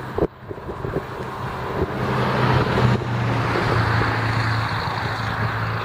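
A road vehicle passing by: a steady low engine hum and tyre noise that swell to a peak three to four seconds in and then slowly ease off. In the first second or two, soft rustling and light knocks as a towel is tucked over the mount in a plastic tool box.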